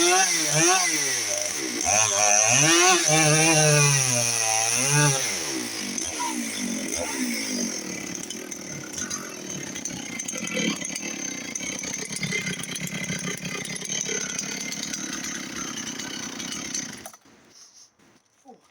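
Dolmar PS 6400 two-stroke chainsaw running, its pitch rising and falling with the throttle for the first few seconds, then running lower and rougher. It stops abruptly near the end.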